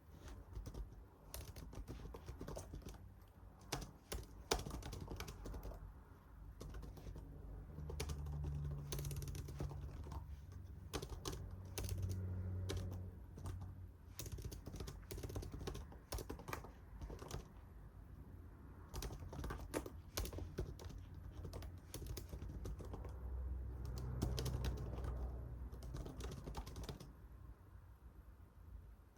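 Typing on a computer keyboard: quick irregular runs of key clicks with short pauses between them.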